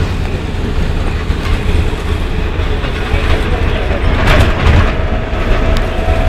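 Cabin of a LAZ-42021 bus under way: steady low engine and road rumble with the body rattling. A brief, louder rattle comes about four seconds in.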